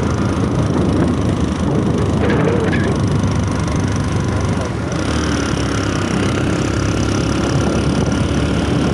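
Motorcycle running at riding speed, with wind rushing over the microphone; a steadier engine hum comes through more clearly about halfway through.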